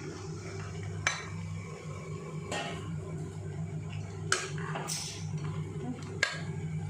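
Utensils clinking and scraping against a pot or bowl as fried chicken pieces go into the spice paste for achar: three sharp clinks and a couple of softer scrapes, over a steady low hum.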